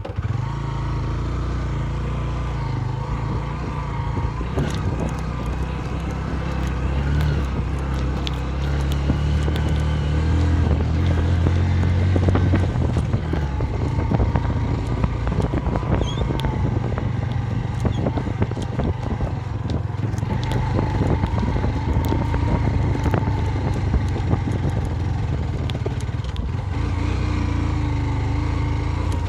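Motorcycle engine running steadily on the move, its note wavering up and down with speed, with frequent clicks and knocks over it.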